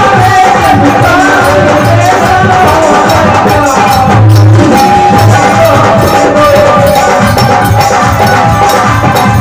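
Live bhajan music: a harmonium holds its reedy melody over deep dholak drum strokes, with a man's singing voice in places.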